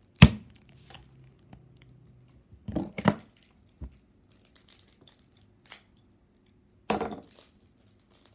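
Foil Pokémon booster pack wrapper crinkling and being torn open by hand, with a few sharp crackles: the loudest about a quarter second in, more around three seconds and about seven seconds in, and soft rustles between.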